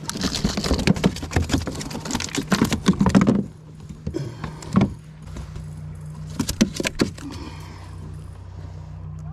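A striped bass being unhooked on the plastic deck of a kayak: a quick clatter of the fish slapping and the topwater lure's hooks and pliers rattling, then a few scattered knocks and clicks.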